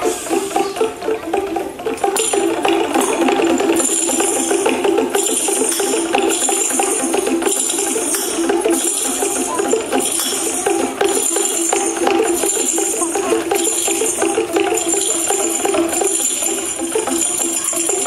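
Children's percussion ensemble playing tambourines, small hand drums and rattles, shaken and tapped together in a steady beat, with the tambourine jingles pulsing on the beat.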